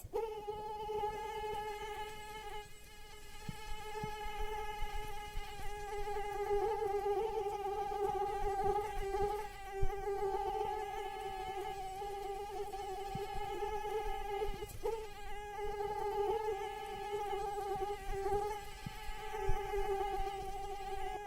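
Mosquito whining in flight: a continuous, high-pitched wingbeat hum that wavers slightly in pitch and loudness, with a few faint clicks.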